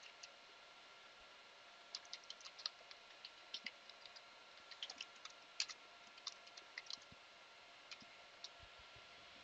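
Faint computer keyboard keystrokes as a short command is typed, in quick runs of clicks from about two seconds in until about seven seconds, with a couple of stray taps near the end, over a faint steady hum.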